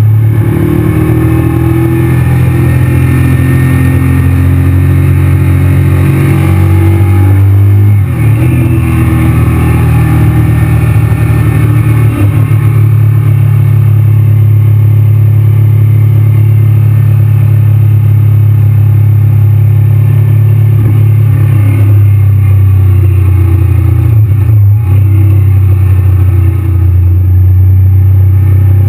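Honda VTR sport motorcycle's V-twin engine running steadily under way, recorded from the bike, with brief dips in engine note about 8 seconds in, again around 12 seconds and near the end.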